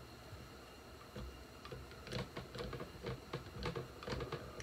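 Screwdriver turning a powerhead hold-down screw home on a 1958 7.5 hp outboard: a run of quick, irregular clicks starting about a second in.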